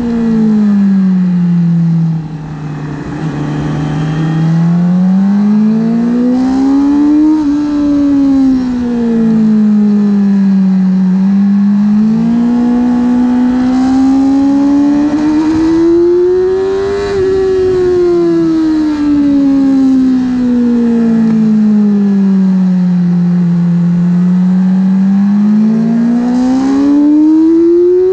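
Yamaha R6's inline-four engine heard onboard, its revs falling as the throttle closes and rising again as it opens, three times over, through slow corners.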